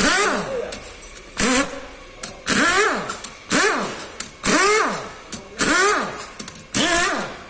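Pneumatic wrench on an air hose, triggered in short bursts about once a second, each spinning up and down in pitch with a hiss of air. It is being used on the bolts of the Kia Rio's disassembled engine block.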